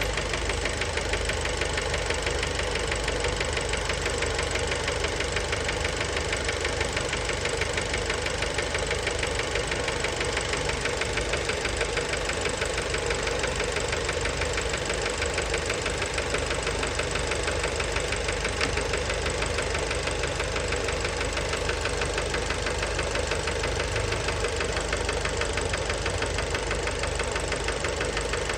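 Fiat Bravo 1.4 T-Jet turbocharged four-cylinder petrol engine running steadily with a fast, even knocking rattle. The knock comes from worn connecting-rod bearings.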